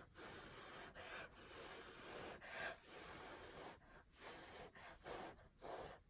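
A person blowing through pursed lips onto wet acrylic paint in a run of faint, short breathy puffs, about eight, each with a quick breath between.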